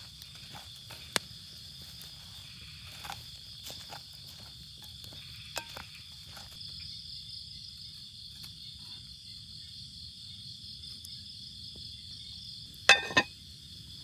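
Night insects such as crickets trilling steadily in a high, pulsing chorus. Scattered light clicks and knocks of handling come through, with a sharp click about a second in and two loud sharp knocks in quick succession near the end.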